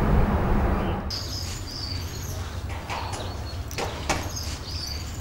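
Short, high-pitched animal chirps repeating now and then, with a few sharp clicks, over a low background hum. Background music fades out in the first second.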